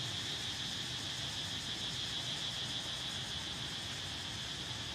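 Steady high-pitched drone of insects, an even buzz that never breaks, over a low outdoor hum.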